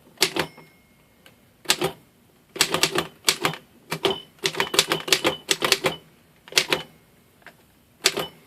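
Royal 5 manual typewriter being typed on: its keys strike as sharp clicks in irregular clusters with short pauses between, a fast run in the middle.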